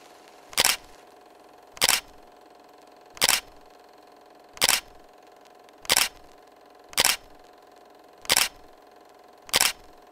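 Camera shutter clicks, evenly spaced at about one every 1.3 seconds, eight in all, over a faint steady hum.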